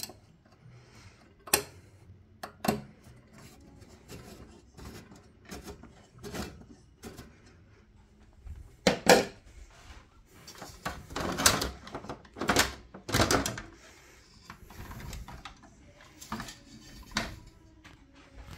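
Metal parts of an Industria 2500 lamp fitting being handled and worked with a screwdriver. Scattered clicks and knocks, with a run of longer scraping rubs in the middle.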